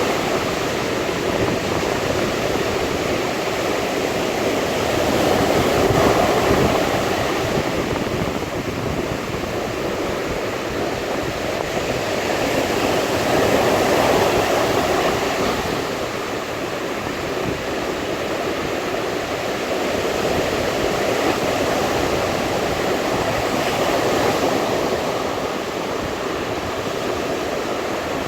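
Sea waves breaking and washing on a shore: a continuous surf rush that swells and eases every several seconds.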